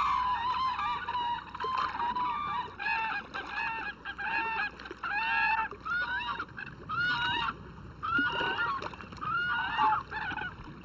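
Whooping cranes calling: a string of short, clear bugling calls from several birds, overlapping and repeating about twice a second.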